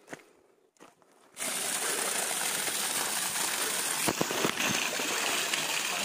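Steady rushing of a waterfall, starting suddenly about a second and a half in after near quiet, with a few sharp clicks about four seconds in.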